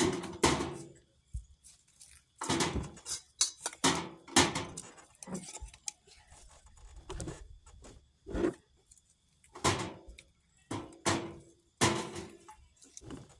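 Lidded glass mason jars of corn clinking and knocking as they are picked up from a table and set into an empty canning pot, a sharp knock every second or so.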